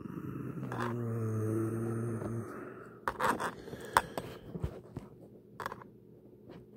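A low, steady hum for about two seconds, then scattered scrapes and clicks as a sneaker and its fabric tongue lining are handled close to the microphone.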